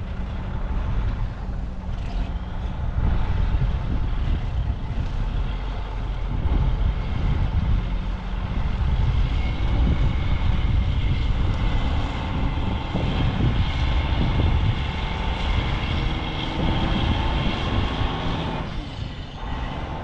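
Large farm harvest machinery running under load: a heavy, steady engine rumble with a high mechanical whine over it through the middle stretch, which fades near the end.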